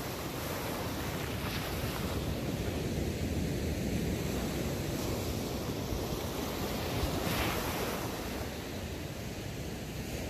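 Ocean surf breaking and washing up the sand: a steady rushing that swells to a louder wash about seven seconds in.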